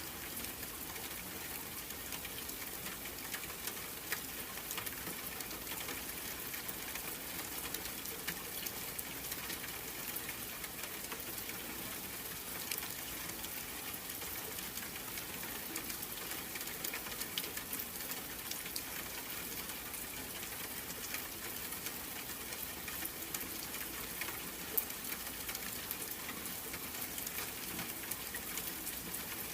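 Steady rainfall: an even hiss of rain with many small drops pattering throughout.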